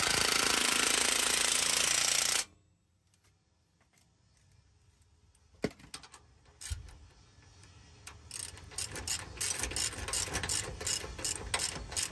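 A loud steady mechanical noise cuts off suddenly about two and a half seconds in. After a near-silent pause, a hand ratchet with a socket extension starts clicking, a few clicks at first and then quick runs of about four clicks a second, as a bolt on the axle's track-bar bracket is run down.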